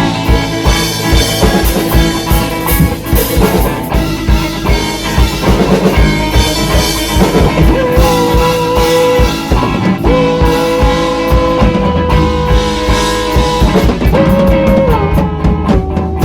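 Rock band playing: drum kit, guitar and bass together, with a lead part holding long sustained notes in the second half.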